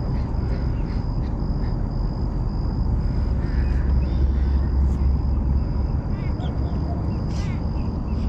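Low, steady rumble of handling or wind noise on the microphone, strongest a few seconds in, with faint bird calls a few times in the second half.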